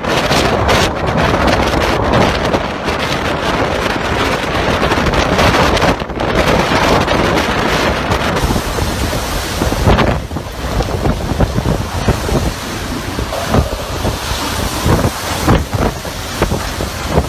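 Strong gusting wind buffeting the microphone, a loud rushing roar that swells and eases.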